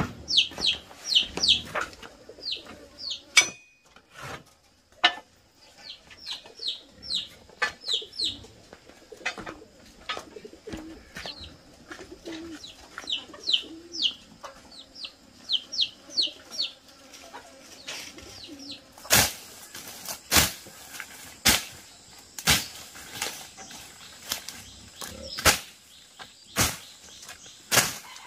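Birds chirping in quick runs of short, falling high notes for the first half or so. From about two-thirds in, a machete chops through undergrowth with sharp strokes about once a second, louder than the birds.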